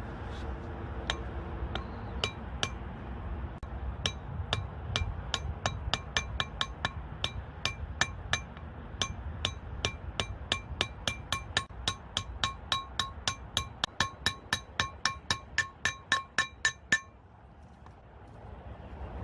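Metal tapping on metal: sharp, ringing clinks, sparse at first, then speeding up steadily to about four a second before stopping abruptly, over a low background rumble.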